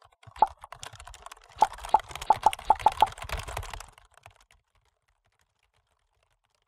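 Sound-design effects for an animated logo: a fast run of keyboard-like clicks and taps with sharper pops among them, densest about two to three seconds in, dying away after about four seconds.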